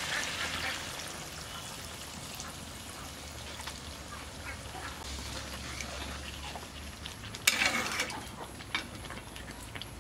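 Chicken curry sizzling in a black iron kadai as water is poured in and a metal spatula stirs and scrapes the pan, with a louder scrape and clatter about seven and a half seconds in.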